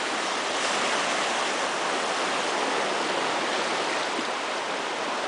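Creek in flood at very high water, rushing past in a steady, even roar of water.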